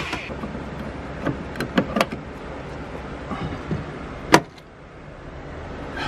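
Cordless electric ratchet running as it backs out a T50 Torx seat belt anchor bolt, with scattered clicks of metal and plastic. It stops with a sharp clack about four seconds in.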